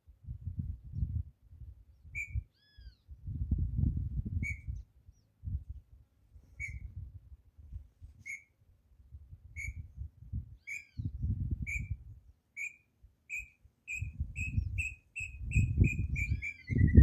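A bird's whistled song: a series of short, evenly pitched notes, about one a second at first, speeding up into a close run near the end and then sliding down in pitch, the pattern of a tinamou's song. Arched calls from a second bird come now and then, over low rumbling thumps from footsteps and camera handling that are loudest near the end.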